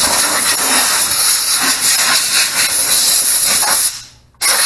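Compressed-air blow gun with a long extension wand, blowing dust off an engine bay with a loud, steady hiss. The blast cuts off suddenly near the end and starts again about half a second later.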